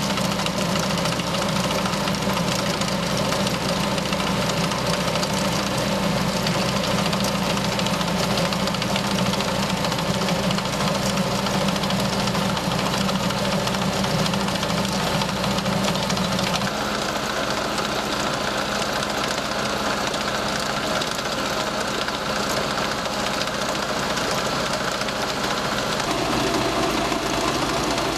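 Tractor engine running steadily under load while driving an AFT 45 chain trencher, whose digging chain churns through turf and soil. About two-thirds of the way through the engine's pitch shifts, and it changes again near the end.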